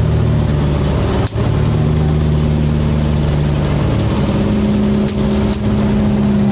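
Fishing boat's engine running with a steady low drone, its note shifting slightly about four seconds in, with a brief click about a second in.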